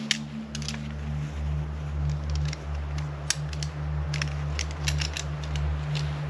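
A low steady hum with scattered sharp clicks and crackles.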